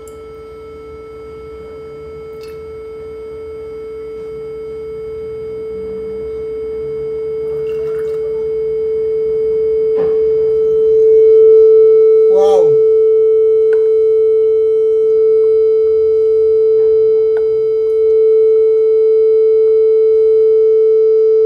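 A 440 Hz pure tone from a phone's Phyphox tone-generator app, resonating in the air column of a glass jar that is filling with tap water. The tone grows steadily louder until about halfway through, then holds loud: the air column has shortened to a quarter wavelength and the waves add up. A few faint clicks from handling.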